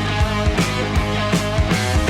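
Rock music with electric guitar and drums, playing at a steady beat.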